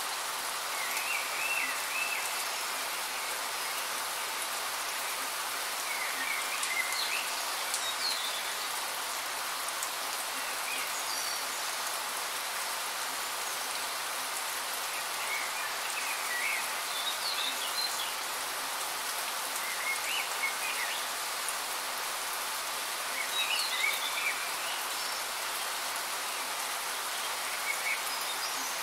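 Steady rain falling, a constant hiss, with short bird chirps breaking in every few seconds.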